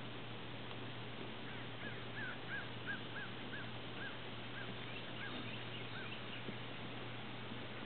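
A bird calling: a run of about ten short notes, each rising and falling in pitch, at first two to three a second and spacing out toward the end. Under it is a steady low hum.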